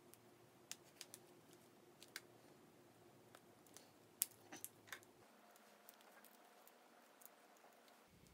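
Faint scattered clicks and taps of a clear plastic case being pressed and snapped onto a Galaxy S21 phone, with the sharpest click about four seconds in and a few more just after.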